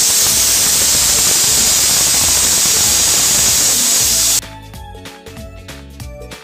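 Aluminium stovetop pressure cooker giving a whistle: the weight valve lifts and steam rushes out in a loud, steady hiss as pressure is released while kidney beans cook inside. The hiss cuts off suddenly about four seconds in, and background music follows.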